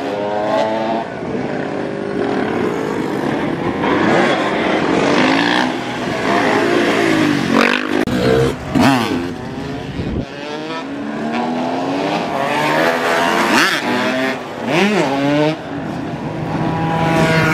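Several dirt bike and supermoto engines revving up and down, overlapping, as the riders work the throttle through wheelies, with quick sharp rev blips about halfway through and again a little later.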